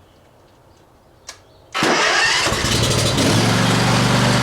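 Lawn mower engine started: a click about a second in, then the engine cranks and catches just under two seconds in, running unevenly for a moment before settling into a steady run.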